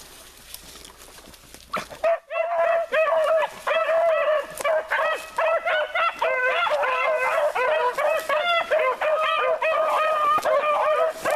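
Several beagles baying together in a continuous, overlapping chorus of repeated howling barks, starting suddenly about two seconds in after a quieter opening.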